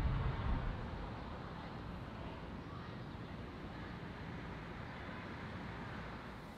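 Outdoor background noise: a low rumble fades away in the first second, leaving a steady, even hiss.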